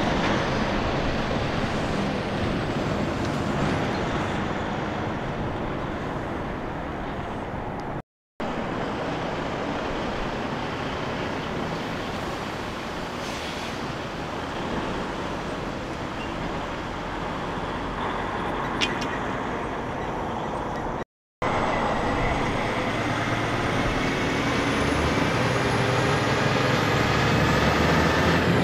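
Semi-trucks passing close by, their diesel engines running over tyre and road noise, broken twice by brief dropouts. In the last part a tractor-trailer pulls through with its engine note and a high whine rising in pitch.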